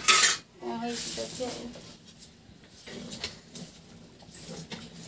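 A metal spatula clinks and scrapes against a steel kadai and plate near the start, followed by a few light clicks. Quiet background voices run underneath.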